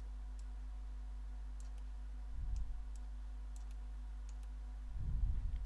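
Computer mouse clicking now and then, faintly, over a steady low electrical hum, with two brief low thumps about two and a half and five seconds in.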